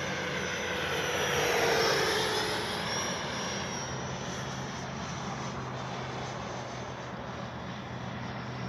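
70mm electric ducted fan of an E-flite F-16 RC jet flying past. Its whine grows louder toward about two seconds in and drops in pitch as it passes, then settles to a steadier, fainter rush.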